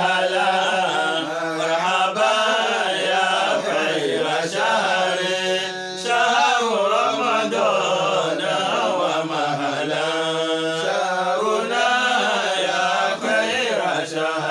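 Arabic nasheed welcoming Ramadan, chanted by voice in long drawn-out notes that bend up and down, with no words made out.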